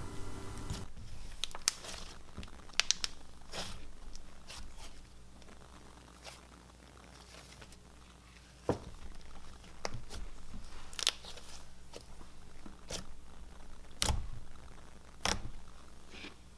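Thick cloud dough slime being stretched, pulled apart and poked by hand: soft tearing and crackling with scattered sticky pops and clicks, quieter for a few seconds in the middle.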